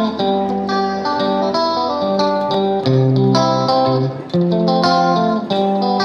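Background music: a melody of plucked notes over a steady chordal backing.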